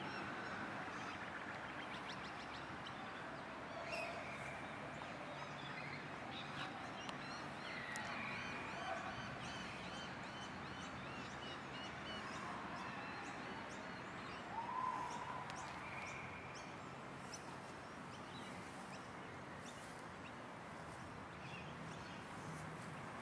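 Scattered bird calls and short chirps over steady background noise, the loudest call about fifteen seconds in.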